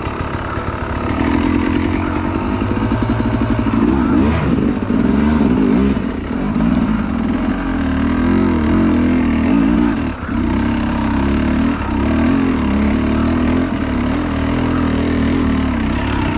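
Dirt bike engine ridden at low speed along a narrow forest trail, its note rising and falling with the throttle, with a brief drop-off about ten seconds in.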